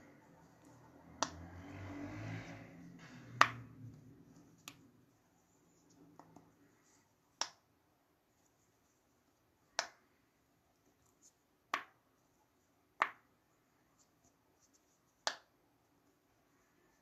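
Silicone pop-it fidget toy having its bubbles pressed through one at a time: about eight sharp pops, unevenly spaced a second or two apart. Soft handling rustle under the first few pops.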